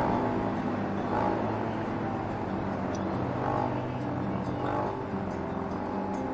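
A vehicle engine running steadily while driving along a highway, heard from the moving vehicle, with its pitch shifting slightly over a constant hiss of road and wind noise.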